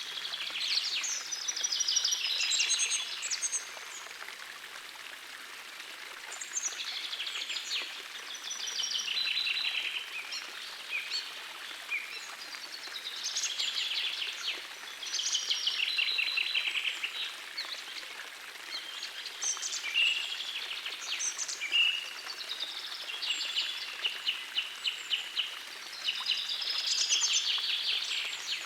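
Songbirds singing in short, busy, repeated phrases every few seconds over the steady rush of a small forest stream.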